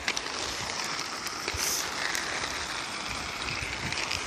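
Steady rolling noise of small wheels on rough asphalt, with a few faint clicks.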